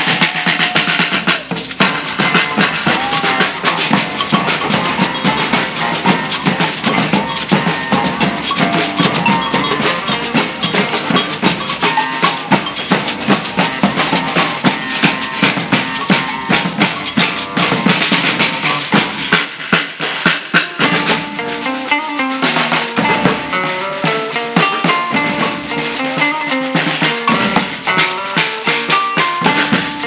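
Maracatu percussion ensemble playing a driving rhythm: rope-tuned alfaia bass drums and snare drums struck with sticks, with a metal tube shaker (ganzá) in the mix.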